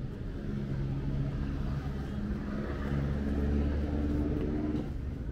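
A passing motor vehicle's engine running, growing louder to a peak about three to four seconds in and fading away near the end.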